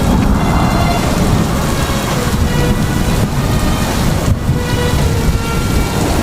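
Steady, heavy rain noise with a dense low rumble running throughout, and faint sustained music notes underneath.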